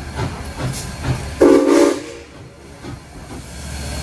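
Southern Railway 630, a 2-8-0 steam locomotive, chuffing in a steady beat as it runs in. About a second and a half in it gives one short blast on its steam whistle. Near the end a steady low hum takes over.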